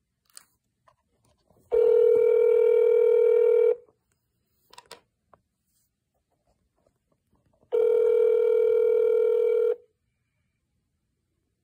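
Telephone ringback tone over a smartphone's speaker: two rings, each about two seconds long, about four seconds apart, as the dialled extension rings.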